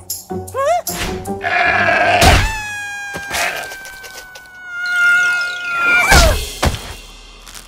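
Cartoon sound effects over music: a short wavering goat-like bleat, then a long whistle that slowly falls in pitch for about four seconds, ending in a crash thud about six seconds in.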